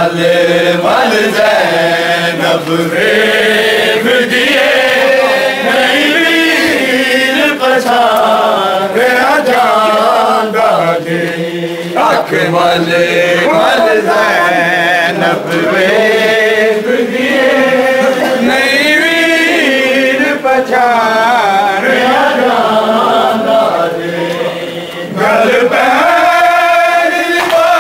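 Voices chanting a noha, a sung Shia lament, the melody rising and falling without a break.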